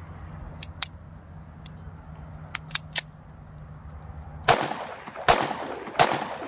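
A few light clicks, then three pistol shots about 0.7 s apart from a Zigana 2 semi-automatic in 30 bore (7.62×25mm Tokarev), starting about four and a half seconds in, each a sharp crack that trails off briefly.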